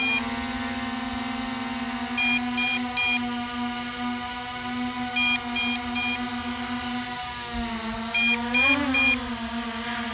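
MJX Bugs 5W quadcopter's low-battery warning: groups of three quick high beeps repeating about every three seconds, over the steady hum of its brushless motors and propellers hovering. The motor pitch wavers near the end. The warning goes off once the battery is down to about 50%.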